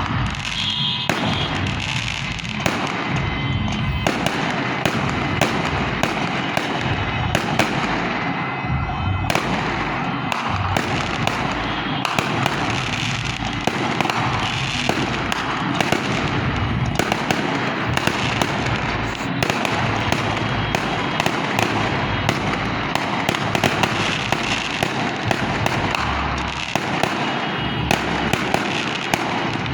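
Dense, continuous crackling with many sharp pops a second, holding at a steady level throughout.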